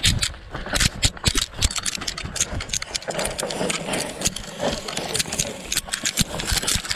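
Mountain bike clattering and rattling over rough ground, with a fast, irregular run of clicks and knocks.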